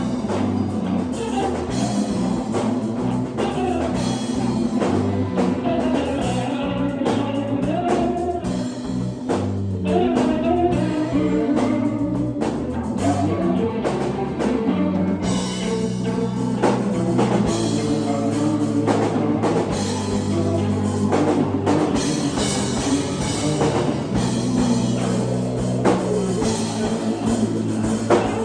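Live rock band playing: drum kit, bass and guitar, with a singer's voice over them.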